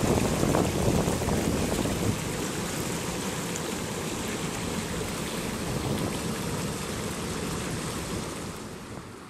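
Flash-flood water rushing and churning over rocks and through a broken wire fence: a steady rushing noise, louder for the first two seconds and then settling.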